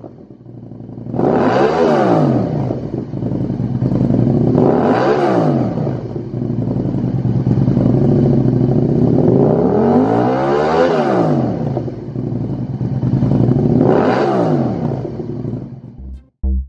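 Aprilia RSV1000's V-twin engine running through a Lextek YP4 aftermarket silencer, idling and revved four times, each rev rising and falling in pitch, the third held longer. The engine sound fades away near the end.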